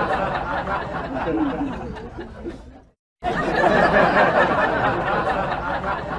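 Several people chattering and laughing together with no clear words. It cuts out for a moment about three seconds in, then starts again.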